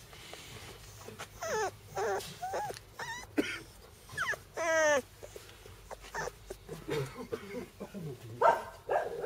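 Bernese Mountain Dog puppies whimpering and yipping in a string of short, high calls. The longest and loudest is a whine about halfway through.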